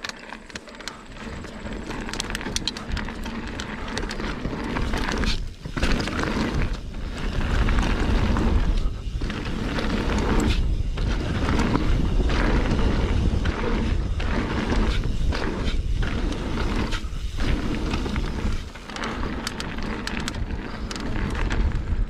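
Mountain bike riding fast down a dirt jump line: wind rushing over the microphone and tyres rolling on packed dirt, the noise dropping away briefly several times.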